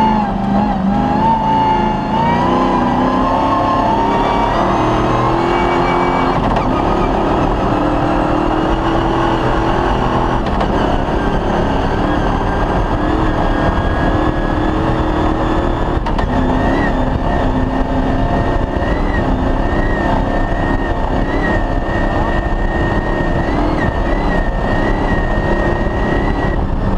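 Off-road rally car's engine running hard on a special stage. Its pitch rises and steps in the first few seconds, then holds fairly steady, with a high steady whine in the second half.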